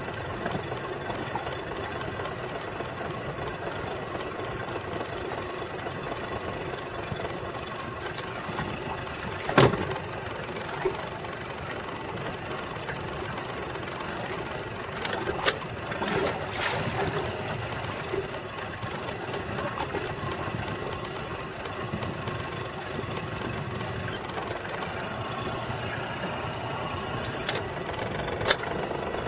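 Boat motor running steadily, with a few sharp knocks on the boat: one about a third of the way in, two around the middle and one near the end.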